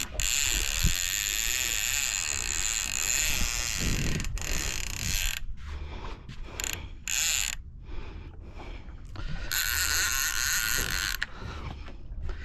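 Fishing reel buzzing under heavy load while a hooked tope is played on braid, its drag and gears running in a long stretch of about five seconds and again for about two seconds near the end.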